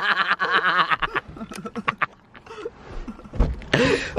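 Young men laughing after a scare prank, strongest in the first second, then quieter with a few scattered clicks and a short low rumble near the end.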